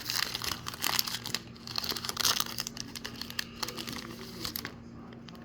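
Foil wrapper of a baseball card pack crinkling and tearing as it is opened by hand. The rustling thins out about four and a half seconds in.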